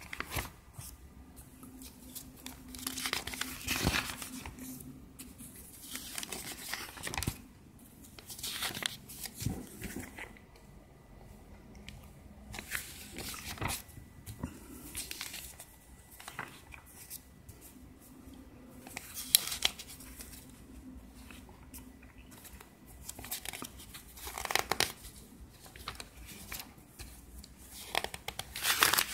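Paper pages of an IKEA catalogue being handled and turned, rustling and crinkling in separate bursts every few seconds.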